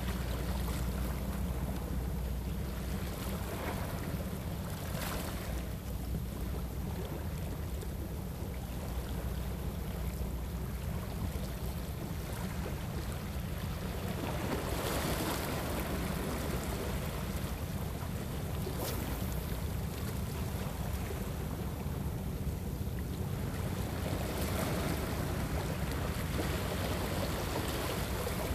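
Sea waves washing against a rocky shore, swelling twice, over a steady low rumble, with a few faint clicks.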